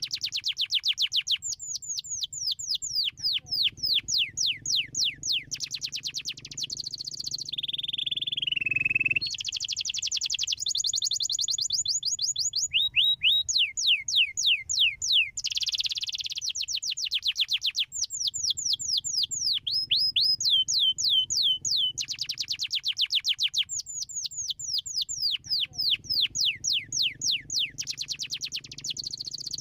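Domestic canary singing a long, continuous song of fast trills, each made of rapidly repeated down-sweeping notes, changing from one trill to the next every second or two. Around eight seconds in comes a slower descending whistle.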